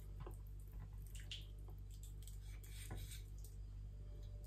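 Faint wet ticks and squelches of a boning knife slicing the skin of a raw chicken wing, over a steady low hum.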